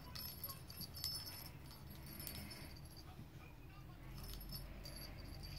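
Small jingle bell inside a plastic cat toy ball tinkling faintly in several short bursts as the ball is rolled and batted about on carpet.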